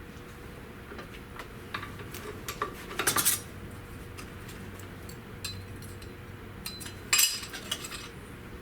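Scattered metallic clinks and scrapes of a sheet-metal floor patch and hand tools being handled, louder clattering about three seconds in and again about seven seconds in.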